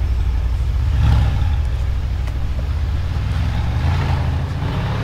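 Brabus-tuned Mercedes-Benz G550 4x4²'s 4.0-litre twin-turbo V8 pulling away: a low exhaust rumble that swells about a second in, then rises in pitch as it accelerates near the end.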